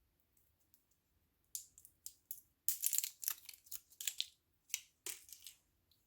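Packaging crinkling and rustling as it is handled: a run of short, irregular crackling bursts that begins about a second and a half in and dies away shortly before the end.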